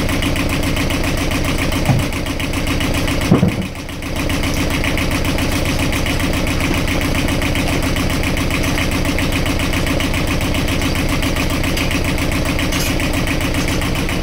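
Universal 5411 two-cylinder marine diesel running steadily at idle. Two brief knocks come a couple of seconds in, the second followed by a momentary drop in level, then the even running resumes.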